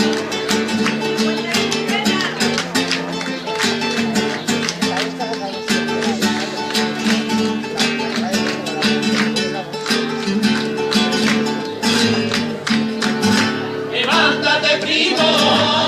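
Music with fast plucked and strummed guitar in a flamenco style; a singing voice comes in near the end.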